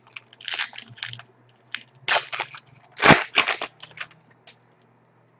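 Foil trading-card pack wrapper crinkling and tearing open in a run of sharp crackles, loudest about two and three seconds in.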